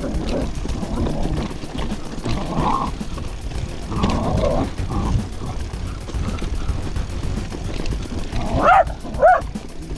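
Low wind and tyre rumble from a mountain bike rolling down a gravel track, with a dog barking twice, sharp and loud, near the end.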